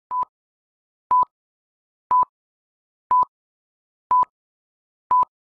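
Film-leader countdown beeps: six short electronic beeps at one steady pitch, one each second, with silence between them.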